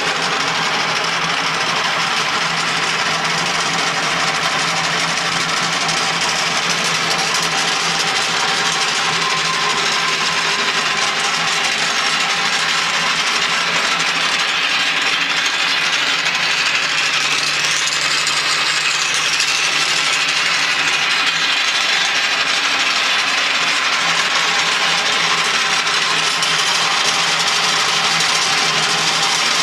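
Taper drill rod sharpening machine running steadily with a loud continuous grinding-machine noise, a brief high whine rising and falling about two thirds of the way through.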